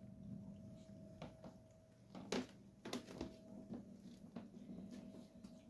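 A pet licking and eating pureed food, heard as a few faint soft clicks around the middle over a steady low hum.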